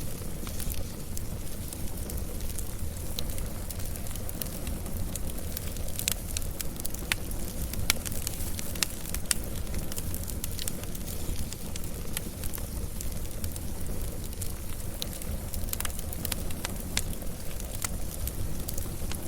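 Fire crackling, with frequent sharp pops and snaps over a steady low rumble of the flames.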